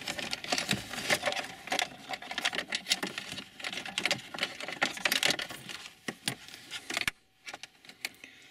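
USB cables being pulled out from behind a car's plastic dashboard trim by hand: dense, irregular clicking, rattling and scraping of wire and plastic, dying down to a few scattered clicks after about seven seconds.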